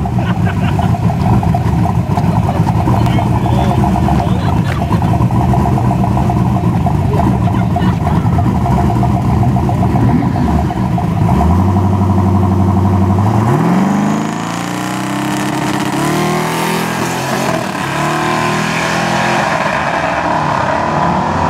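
Twin-turbo Fox-body Mustang drag car running at the starting line, then held at one steady rpm for a couple of seconds before it launches. After the launch the engine note rises in pitch several times as the car shifts through the gears and pulls away down the strip.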